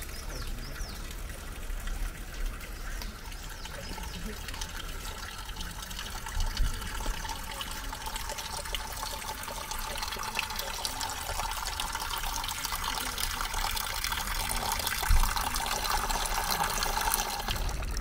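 Water trickling from a metal spout of a mountain drinking fountain and splashing into the basin below: a steady running that grows louder in the second half. A couple of brief low thumps sound along with it.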